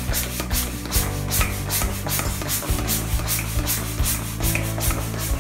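A small hand air pump worked quickly back and forth, each stroke a short puff of air, about three a second. Background music plays underneath.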